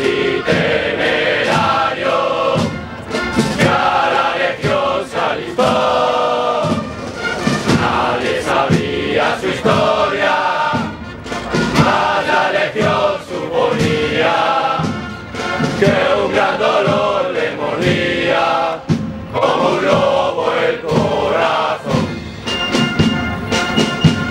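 A large body of men singing a hymn together in chorus, in phrases with short breaths between them.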